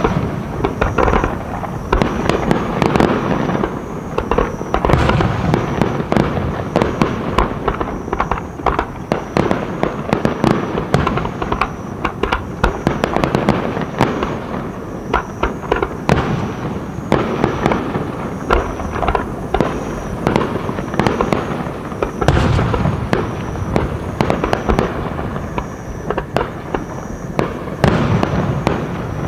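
Fireworks display in full barrage: dense, overlapping shell bursts and crackling, easing off briefly a few times.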